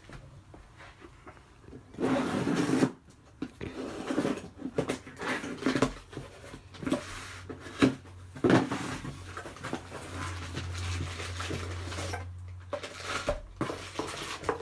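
Hands opening a small cardboard box and lifting out parts sealed in a plastic bag: cardboard flaps scraping and rustling, plastic crinkling, with light knocks. A louder noisy burst lasting about a second comes two seconds in.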